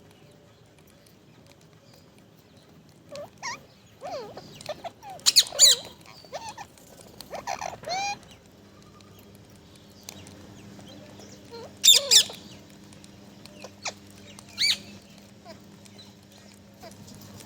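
Pet parrot giving scattered squawks and chirps, some with sliding pitch, with loud harsh squawks about five seconds in and twice in quick succession about twelve seconds in. A faint steady hum starts about halfway through.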